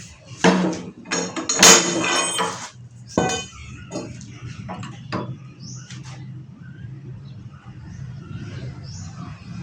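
Metal clanking and clinking: a cluster of sharp, ringing metal-on-metal knocks in the first few seconds, then scattered lighter taps over a low steady hum.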